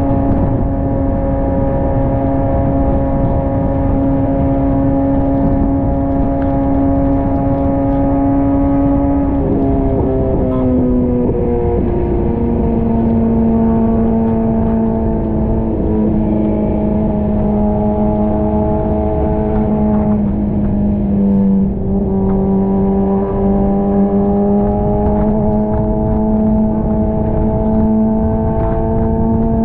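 Kawasaki ZX-6R's inline-four engine running at steady cruising revs. The note falls about a third of the way in, holds lower, dips briefly, then slowly climbs again toward the end. A steady rush of wind and wet-road noise lies under it.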